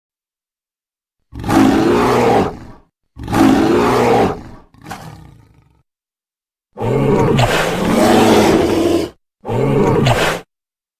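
Dinosaur roar sound effects: five deep roars with silence between them, two of about a second and a half each, a shorter fainter one, then a longer roar of about two seconds and a short last one near the end.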